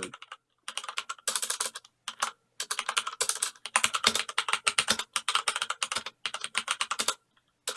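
Typing on a Corsair K65 mechanical keyboard with Cherry MX Red linear switches: rapid keystrokes in runs, broken by a few short pauses.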